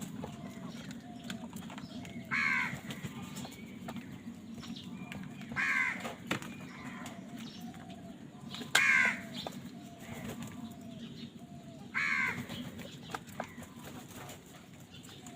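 A crow cawing four times, about three seconds apart, each caw a short harsh call. Fainter, lower bird calls and a steady low hum run underneath.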